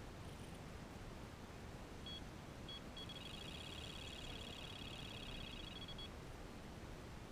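Delkim TXi Plus electronic bite alarm: two single high bleeps a little over half a second apart, then a fast, unbroken string of bleeps for about three seconds. This is line being pulled off the rod, the signal of a carp run.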